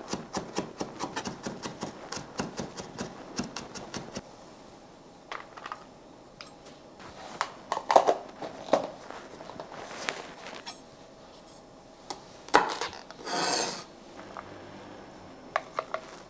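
Kitchen knife rapidly chopping garlic on a wooden cutting board, several strokes a second for about four seconds. Then come scattered knocks, scraping and clicks as the minced garlic is gathered and a plastic food container is handled and closed.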